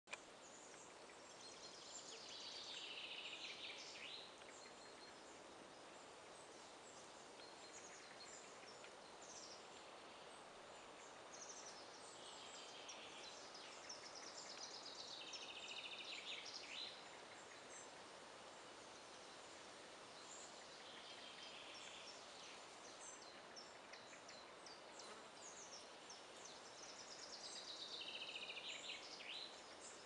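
Faint birdsong in a pine forest. One bird repeats a short song phrase that falls in pitch several times, loudest about three seconds in and near the end, over short higher calls from other birds and a steady quiet hiss.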